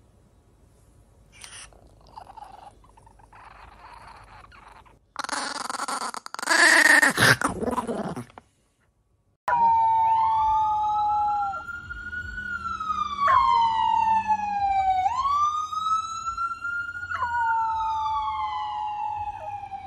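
A siren wailing up and down in repeated cycles, with a blue merle puppy howling along, its head thrown back. Before that comes a short, loud, noisy sound.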